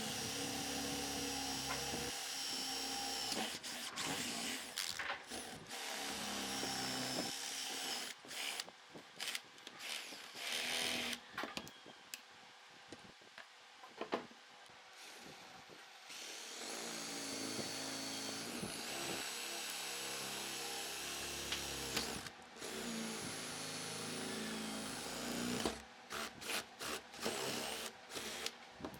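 A power tool running in long steady stretches, started and stopped in short bursts several times in between and near the end.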